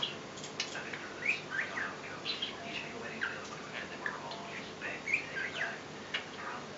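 Male budgerigar chattering: a running stream of short, squeaky chirps and quick warbled notes.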